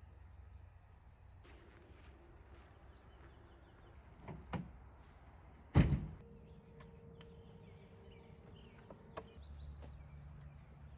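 Pickup truck door shut with a loud slam about six seconds in, after a couple of softer knocks.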